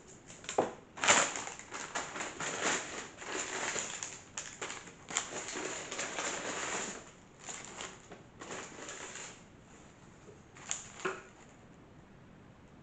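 Paper takeaway bag and food wrappers rustling and crinkling as food is unpacked: a run of crackly rustles for about nine seconds, then two sharp crinkles near the end.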